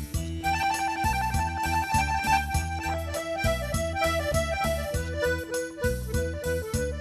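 Live luk thung band playing an instrumental break: a reedy, accordion-like lead melody stepping gradually downward over bass and a steady drum beat.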